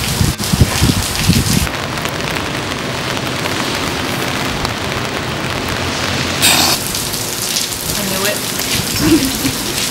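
Steady rain falling on wet pavement, an even hiss, with a brief louder rush about six and a half seconds in.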